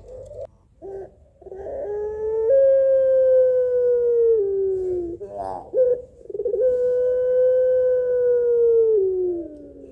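Pelung ringneck dove (puter) giving long drawn-out coos, a female calling for a male: two held notes of about three seconds each that slide down in pitch at the end, with short quavering notes before and between them.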